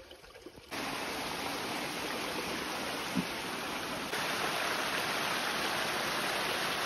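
Rushing water of a small mountain stream cascading down a waterfall: a steady hiss that comes in suddenly about a second in and gets louder about four seconds in.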